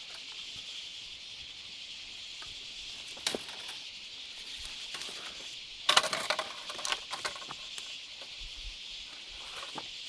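A steady high insect chorus, with scattered light clicks and rustles and a louder burst of rustling and knocking about six seconds in.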